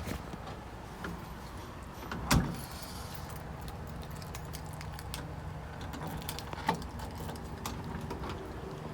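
Car cabin with the engine running as a steady low hum, small clicks and rattles over it, and one loud thump about two seconds in.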